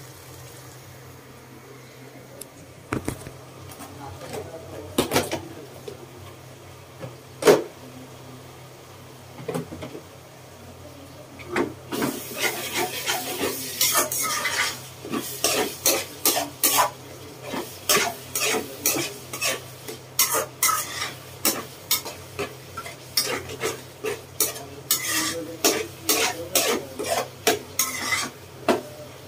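A metal spoon stirring and scraping through a thick chicken gizzard masala in a steel wok, clinking against the pan, over a faint sizzle. A few scattered knocks at first, then from a little before halfway a quick, even run of strokes about two a second.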